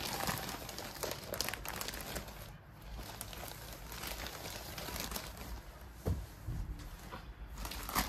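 Plastic wrapping of a diaper pack crinkling and rustling as it is opened and the diapers are pulled out, with a brief thump about six seconds in.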